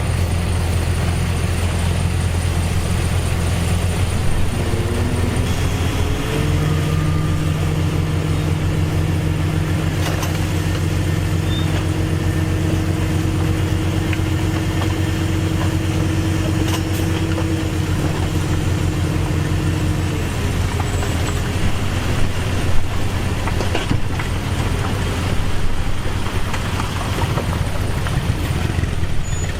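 Heavy diesel engine of earthmoving machinery running steadily. About five seconds in its pitch rises and stays raised for roughly fourteen seconds, as if under load or revved, then settles back.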